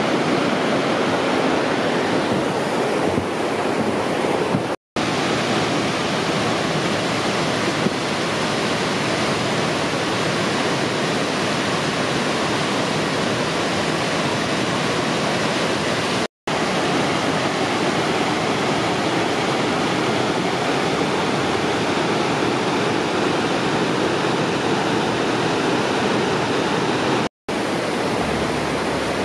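Rushing water of a mountain stream cascading over boulders, a steady rush without let-up, cut by three brief dropouts to silence.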